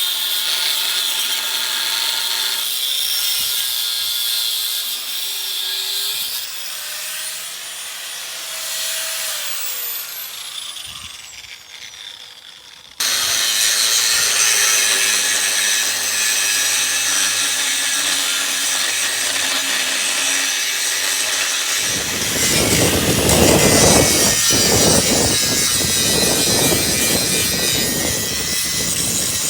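Flux-core wire welder at work: a steady hissing, crackling arc noise. It breaks off abruptly about 13 seconds in, then resumes, with a heavier, deeper rumbling noise added in the last several seconds.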